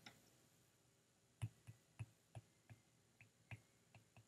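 Faint, light clicks of a stylus tapping on a drawing tablet as letters are handwritten: about ten short taps, a few a second, beginning about a second and a half in.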